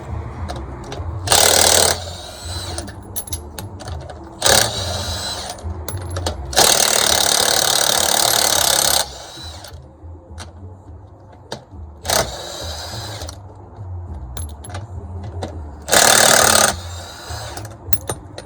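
Power drill spinning loosened lug nuts off a truck's steer-axle wheel in five short bursts, the longest about two and a half seconds, in the middle. Between the bursts come metallic clicks and clinks of the socket and nuts.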